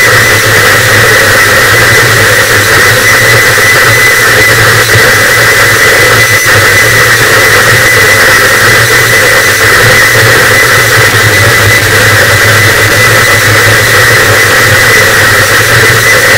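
Harsh noise wall: a loud, static, unchanging wall of heavily distorted noise, with a thin steady high tone running through it.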